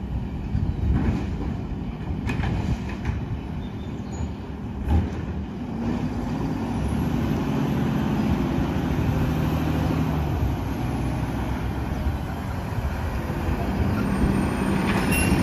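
Mack LR garbage truck's engine running, growing louder from about six seconds in, with a few knocks in the first five seconds.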